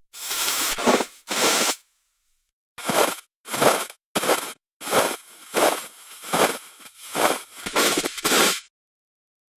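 Avalanche snow-rush sound effect: about a dozen short rushes of hissing noise, each under a second, that swell and cut off. There is a gap about two seconds in, and the rushes stop about a second before the end.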